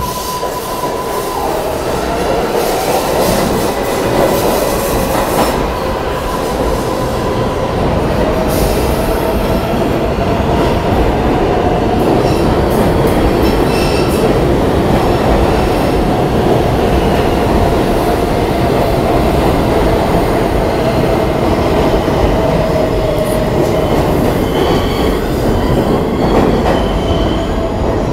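New York City Subway trains moving through an underground station. The wheels rumble on the rails under a long, steady squeal or whine that drifts slightly in pitch.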